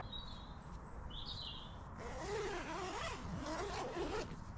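Birds calling in a garden: a short high chirp about a second in, then fainter wavering calls. Under them is a soft rustle and zip as a nylon tent door is drawn shut.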